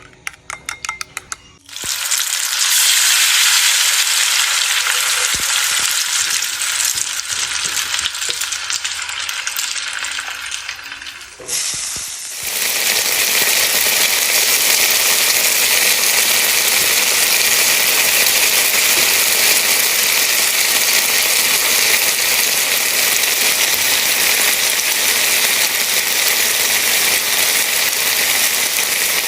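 Food frying in a hot pan, sizzling loudly and steadily after a quick run of clicks at the start. The sizzle changes character about twelve seconds in and then carries on evenly, hissy and bright.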